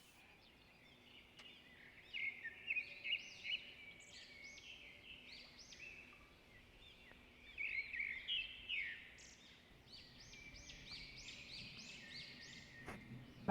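Small birds chirping: quick, high, repeated calls that come in several clusters with short pauses between them.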